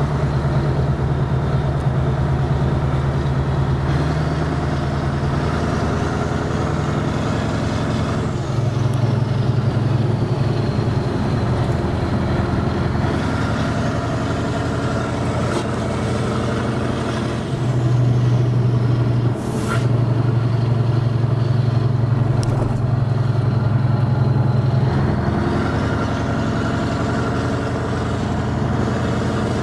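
Scania V8 truck engine running under way, heard from inside the cab: a deep, steady drone whose pitch and loudness step up and down a few times as the truck drives on, with a single sharp click about two-thirds through.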